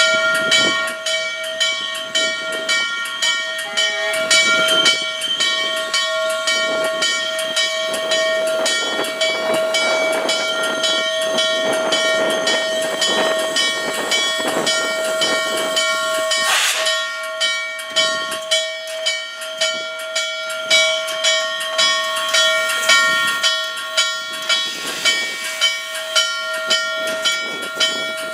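Norfolk & Western 611's locomotive bell ringing in a steady rhythm, struck over and over, as the Class J 4-8-4 steam locomotive rolls slowly in, with steam hissing and a short loud burst of hiss about two-thirds of the way through.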